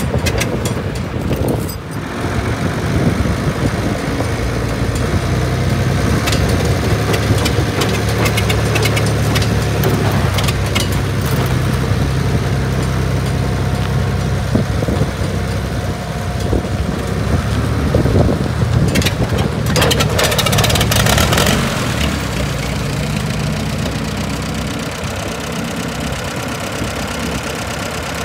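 An engine running steadily at an even speed, with a short patch of rattling about two-thirds of the way through.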